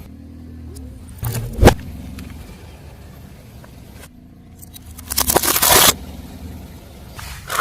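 Car tyre rolling slowly over objects and crushing them, over the low rumble of the car: one sharp, loud crack about a second and a half in, then a burst of crunching and crackling around five seconds in, and a short crunch near the end.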